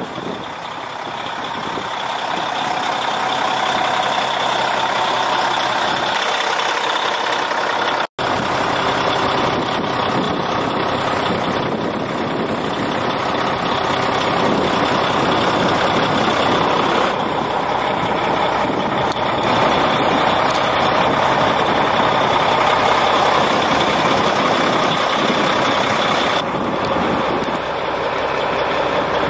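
Heavy truck diesel idling steadily, plausibly the Peterbilt 379's Caterpillar C13 inline-six. The sound cuts out for a moment about eight seconds in.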